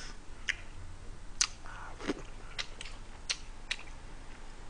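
Close-miked eating sounds: a person chewing a mouthful of kimchi stew, with about seven short sharp clicks and smacks scattered through it.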